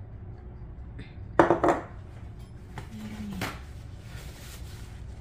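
Kitchenware clattering: a glass mixing bowl set down on a stone countertop, two sharp knocks close together about a second and a half in, then a few lighter clicks.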